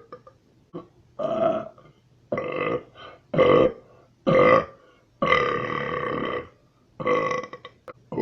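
A person burping over and over: about six separate burps with short pauses between them, most about half a second long, and one longer, drawn-out burp starting a little after five seconds in.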